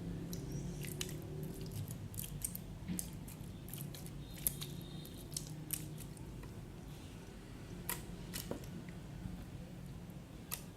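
Freshly activated homemade slime being kneaded and stretched by hand, giving off irregular sharp sticky clicks and pops, a few a second; the slime is thick but still slightly sticky on the hands.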